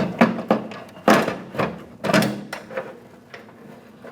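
Door handle parts clicking and knocking as the lock-cylinder bracket and handle assembly are worked loose: a run of sharp knocks, most in the first two and a half seconds, then a few lighter clicks.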